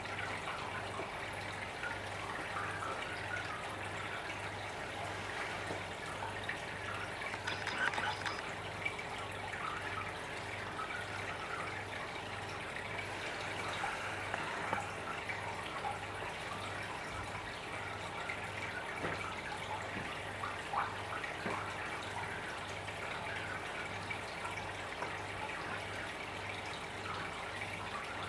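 Aquarium water trickling and splashing steadily, with a low hum that pulses at an even rhythm.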